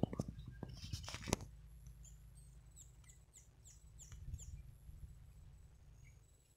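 Knocks and brushing of handling among leaves in the first second or so. Then a small bird gives a quick run of about eight short, high chirps, each falling in pitch, over a faint low rumble.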